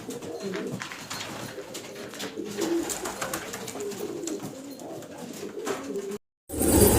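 Domestic pigeons cooing over one another, with scattered light clicks. Near the end the sound cuts out for a moment, then a much louder rushing noise starts.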